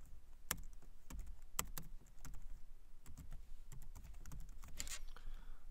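Typing on a computer keyboard: a run of separate, irregularly spaced keystrokes.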